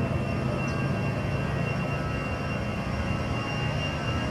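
Airbus A320-214's CFM56-5B jet engines at takeoff thrust during the takeoff roll: a steady jet roar with a thin, steady high whine over it.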